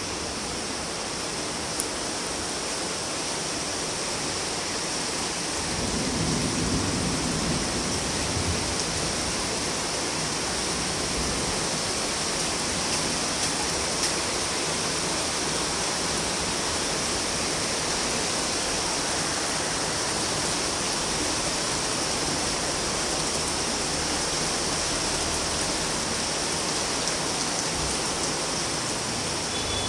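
Steady night rain falling on city rooftops and a wet street, an even hiss. About six seconds in it grows a little louder and fuller and holds there.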